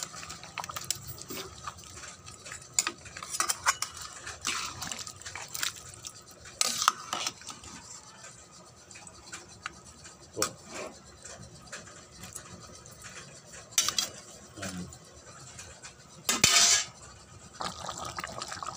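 Metal cookware and utensils clinking and knocking against an aluminium pot and metal bowls while a pot of chicken curry is handled and stirred, with scattered sharp clicks and a louder clatter near the end.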